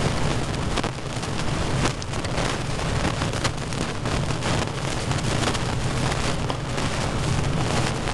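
Steady rain during a thunderstorm, with many small drop ticks, and wind buffeting the microphone as a constant low rumble.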